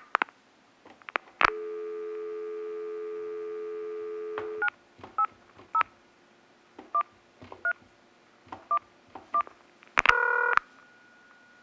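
Touch-tone telephone being dialled. A click, then a steady dial tone for about three seconds, then about seven keypad presses, each giving a short two-tone beep at an uneven pace. About ten seconds in comes a brief, louder burst of several tones together, then a faint steady high tone.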